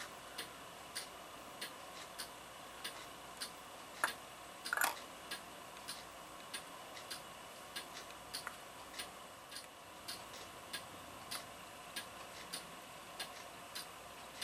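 Mechanical clock ticking steadily, a little under two ticks a second. A louder knock comes about 4 s in, followed by a short scraping sound.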